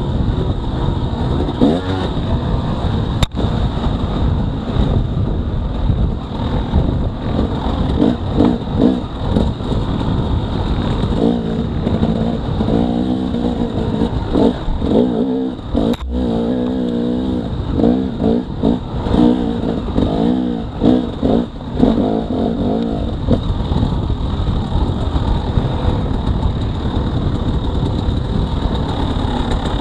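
Dirt bike engine on a trail ride, its pitch rising and falling as the throttle is worked, over a heavy rumble of wind and riding noise. Two sharp knocks, one a few seconds in and one about halfway.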